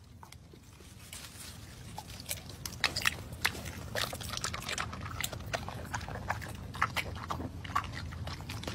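Yellow Labrador chewing a tomato: a run of quick, sharp bites and smacks of the jaws, faint at first and growing louder.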